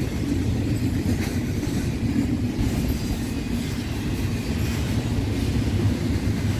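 Intermodal freight train cars rolling past at close range: a steady rumble with faint wheel clicks over the rail joints.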